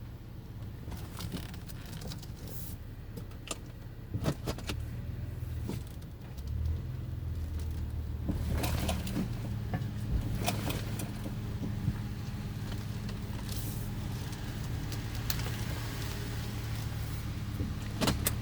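Car engine running at low speed while the suspension gives several sharp creaks and clicks as the car climbs the driveway, which the driver takes for bushings moving.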